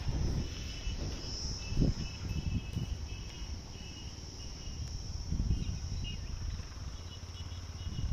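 Insects chirring steadily in a high, unbroken trill, with a fainter pulsing chirp beneath it. Under them is low, irregular rumbling that swells about two seconds in and again past the midpoint.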